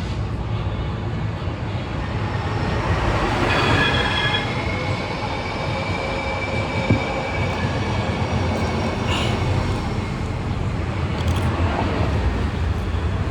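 A train passing with a steady low rumble. From about three seconds in, its wheels squeal with high thin tones that hold for several seconds and then fade.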